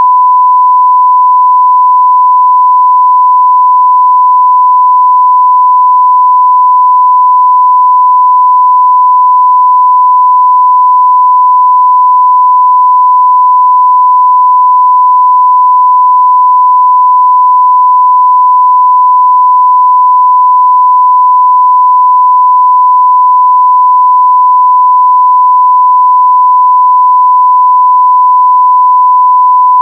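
A continuous pure electronic tone at about 1 kHz, loud and unchanging, like a 1 kHz sine test tone, with no other sound.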